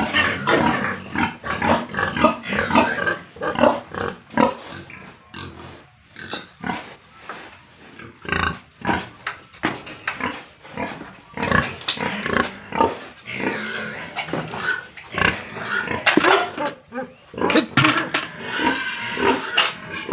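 Pigs and piglets grunting and squealing in a rapid, overlapping run of short calls. Loudest in the first few seconds and again through the second half.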